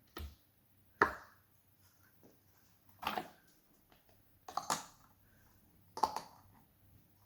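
Bubbles of a small silicone pop-it fidget (a mini flippy octopus poppet) being pressed, popping one at a time: about six sharp pops a second or so apart, with a quick double near the middle.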